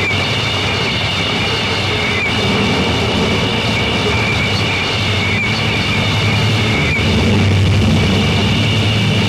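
Noise music: a loud, unbroken wall of distorted noise with steady high whining tones over a low droning hum, growing slightly louder after about seven seconds.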